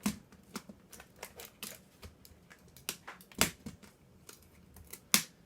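Irregular clicks and knocks of hard plastic as a 1990s computer keyboard is handled and pried apart, with louder knocks at the start, about midway and near the end.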